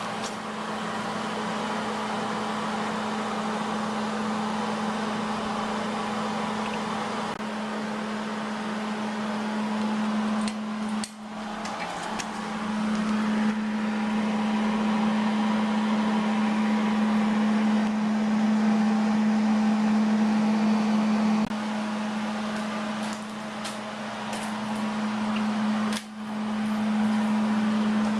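MIG welding with a Miller Millermatic 211: a steady buzzing arc over a hiss, broken by short pauses about 11 and 26 seconds in as the weld stops and restarts.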